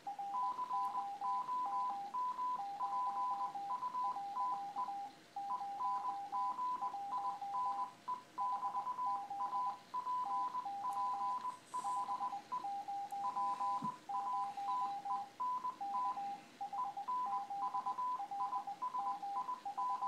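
Two computer-generated Morse code (CW) signals played at the same time through one speaker: two beeping tones at slightly different pitches, each keyed in its own pattern of dots and dashes, their beeps overlapping.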